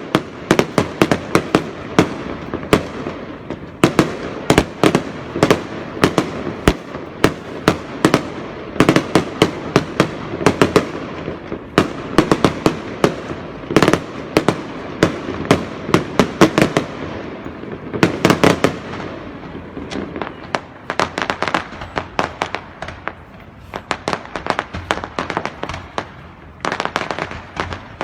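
Fireworks going off in a dense barrage: many sharp bangs in quick succession, thinning out somewhat after about twenty seconds.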